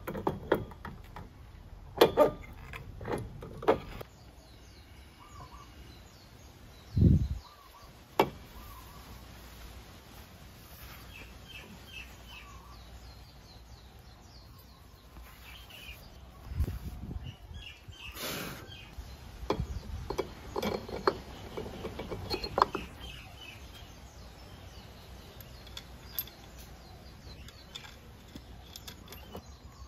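Clicks and knocks of a scooter's CVT clutch and driven pulley assembly being handled on its shaft, with a dull thump about seven seconds in. Birds chirp faintly in the background.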